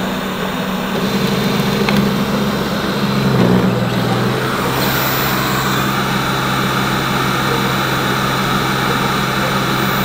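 Xiaomi robot vacuum's motors running with a steady whirring hum, which shifts in pitch about three seconds in.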